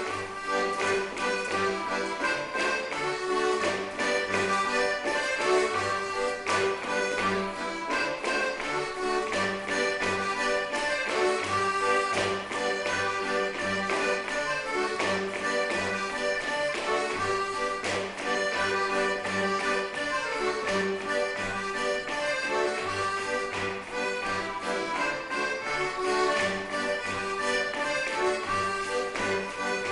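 Accordion playing a lively traditional dance tune for North West Morris garland dancing, with a steady bass beat under the melody.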